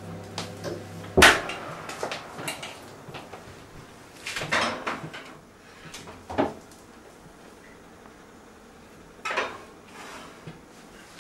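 Metal muffin tins clattering and knocking against the wire oven rack as they are slid into the oven, with a sharp clack about a second in, a burst of clatter a few seconds later and a few lighter knocks after.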